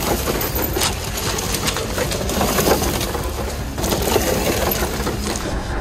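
Stock RC Ford F450 scale truck with its brushed motor running, the drivetrain and tyres making a continuous rough, crackling noise.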